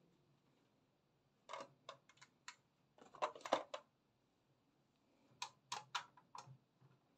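Light plastic clicks and knocks from toy buses being handled on a tabletop, coming in short clusters: a few clicks about one and a half seconds in, a quicker, louder rattle around three seconds in, and four separate clicks near the end.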